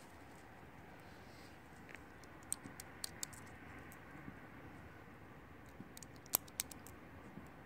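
Faint distant gunshots: sharp cracks at irregular intervals, some in quick pairs, the loudest about six seconds in.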